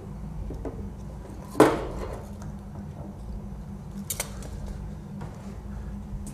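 A loud, sharp metallic clank with a short ringing tail about one and a half seconds in, then a lighter click a little after four seconds, over a steady low hum.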